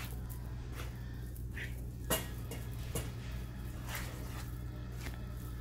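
A spoon stirring semolina kesari in a pan, with a few scattered clinks and scrapes against the metal, the loudest about two seconds in. A steady low hum runs underneath.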